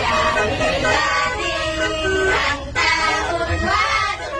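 A group of women singing a sholawat together in chorus.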